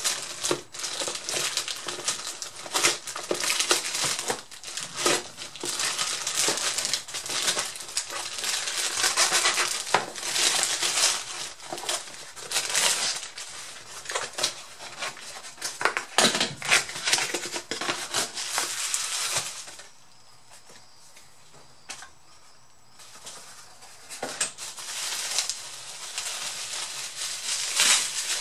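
Packaging being opened by hand: a plastic courier mailer bag, a cardboard box and bubble wrap crinkling and rustling in irregular bursts. A quieter pause of about three seconds comes about two-thirds of the way through, then the crinkling starts again.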